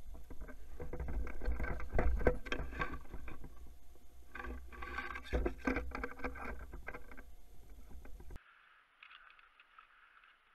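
Handling noise on an action camera mounted on an airsoft rifle: rubbing, rustling and knocks over a low rumble, loudest about two seconds in. It cuts off about eight seconds in, leaving a fainter, steady sound.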